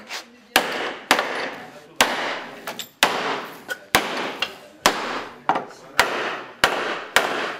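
Claw hammer striking about ten times at an uneven pace, driving wooden pre-assembly pegs into the edge of a hull plank; each blow leaves a short ring.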